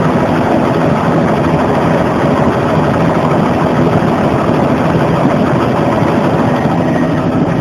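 Bell 206 JetRanger helicopter in flight, heard from inside the cabin: its Allison 250 turboshaft engine and rotor make a loud, steady drone with a low hum.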